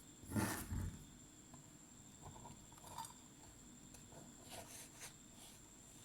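Faint handling sounds of small clothes being pushed into a cardboard toy washing machine: a brief louder rustle near the start, then scattered soft taps and rustles.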